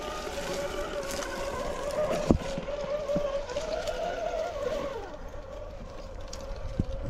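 Traxxas TRX4 Sport RC crawler's Fusion SE 1800KV brushless motor and geared drivetrain whining steadily as the truck crawls over rock, with a sharp knock about two seconds in. The whine wavers and stops about five seconds in.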